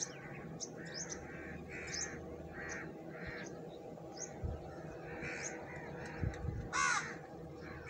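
Black francolin calling: a run of short repeated notes about two a second, then one loud call near the end. Two low thumps about halfway through.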